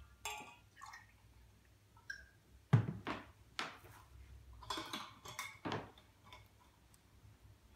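A handful of short knocks and clinks of a drinking glass and tableware being handled on a wooden table, the sharpest one about three seconds in.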